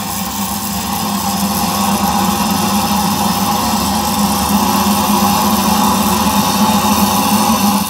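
Compressed air hissing through a DIY siphon-nozzle waste-oil burner as it fires, with a steady hum underneath; the flame is still burning very smoky. The hiss cuts off suddenly at the end as the air is shut off.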